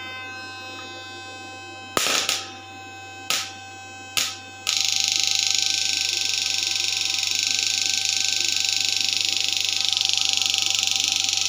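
Homemade 3000-watt fish shocker buzzing over a steady low hum. It is switched on in three short bursts, then from about five seconds in runs as a loud continuous pulsing buzz while its electrode arcs in a bowl of water.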